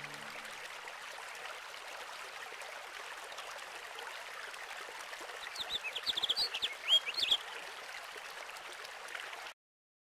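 A steady rushing hiss like running water, with a short flurry of bird chirps a little past the middle. The sound cuts off suddenly near the end.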